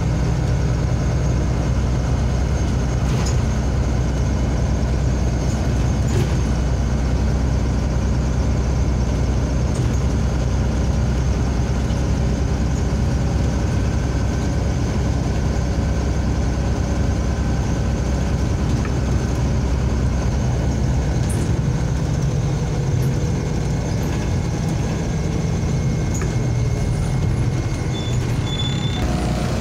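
MAZ-203 city bus driving, heard from inside the passenger cabin: a steady low engine hum with road noise and an occasional faint rattle.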